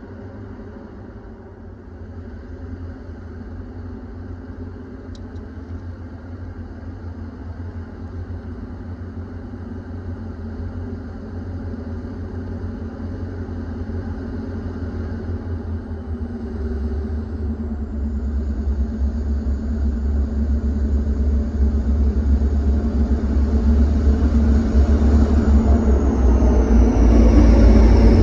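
Diesel freight locomotives of a Rochester & Southern train approaching, their engines a low rumble that grows steadily louder as they near. Near the end, as the lead unit draws alongside, a high whine drops in pitch.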